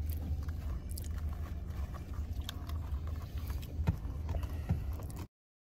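Steady low rumble inside a car's cabin, with scattered light clicks and crinkles from a paper fries carton being handled. The sound cuts off abruptly near the end.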